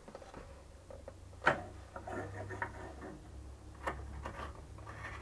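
Small clicks and knocks of a bow stick being fitted into the wooden holder of a homemade bow-threading machine and its metal hose clamp being handled, with one sharp click about a second and a half in.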